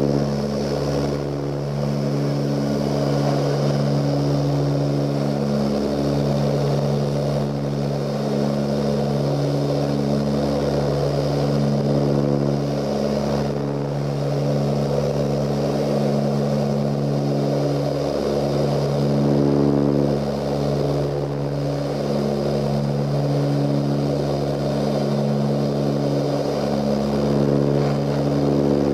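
Cabin drone of an Ilyushin Il-18's four Ivchenko AI-20 turboprops in flight. Several steady low propeller tones waver slowly in and out over a constant rushing hiss.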